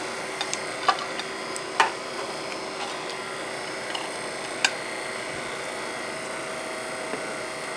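A few sharp clinks and scrapes of a metal utensil on a plate and baking pans, three of them louder, the last about halfway through. A steady hum lies underneath.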